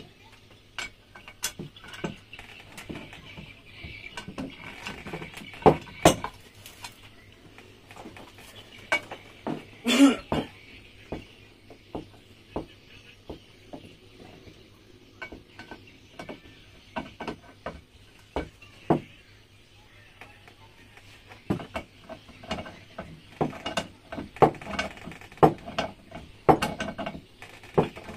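Irregular metallic clinks, taps and knocks of parts and tools being handled while assembling the gearbox of a Yamaha 15 hp outboard's lower unit, with a few louder knocks, over a faint steady low hum.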